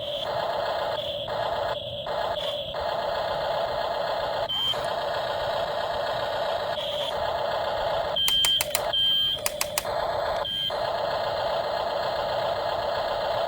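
Remote-control toy vehicle running with a steady whirring hum. Short high beeps come every second or two, with a quick run of clicks and beeps about eight to nine seconds in.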